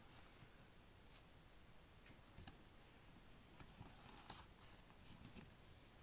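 Near silence with a few faint rustles and soft clicks as a spiral-bound paper desk calendar is handled and its cover flipped back on the spiral.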